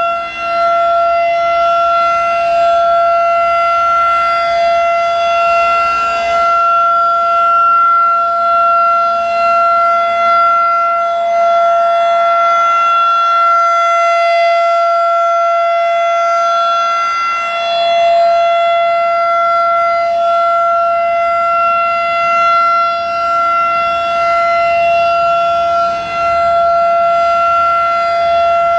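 Federal Signal 2001-DC rotating outdoor warning siren sounding its steady alert tone: one pitch held unbroken and loud, swelling and fading slightly as the rotating head sweeps around.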